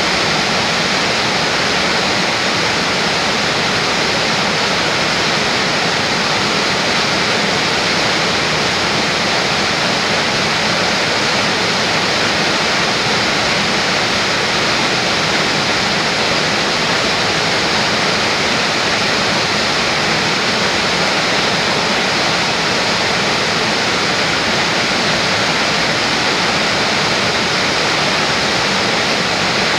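Steady, loud rush of whitewater churning and falling between rocks, an even, unbroken noise with no let-up.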